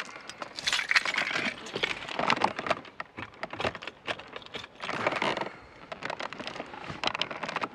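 Irregular clicks, knocks and rustling from someone moving about and handling things inside a car. There is no steady motor sound, so the blower is not yet running.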